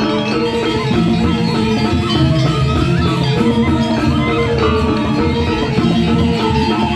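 Balinese gong kebyar gamelan playing: bronze metallophones and kendang drums in a dense, continuous texture of ringing tones at an even loudness.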